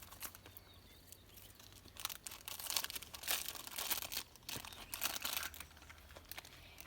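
Toy packaging being torn open, crinkling and rustling in irregular bursts that get busier about two seconds in.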